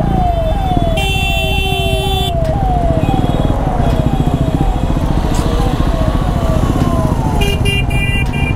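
Ambulance siren cycling quickly, its pitch sweeping and falling about twice a second and fading near the end, over a motorcycle engine idling in traffic. A vehicle horn honks for about a second a second in, and again near the end.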